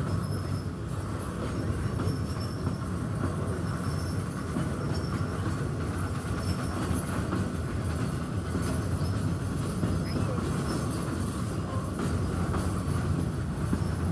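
Container freight train's wagons rolling past at close range: a steady rumble and clatter of wheels on the rails.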